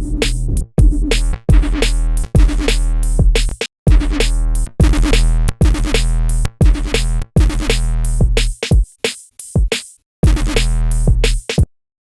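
Electronic music: deep synthesized bass stabs layered with white noise, played as short repeated hits with a drum-machine beat. The music cuts off suddenly near the end.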